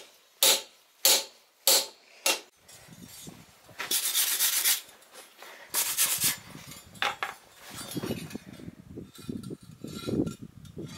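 Hammer blows on a hand punch driven into a red-hot steel bar on an anvil: five sharp metallic strikes about every half second. Then a steel wire brush scrubbing scale off the bar in hissing strokes, followed by low knocking and rustling.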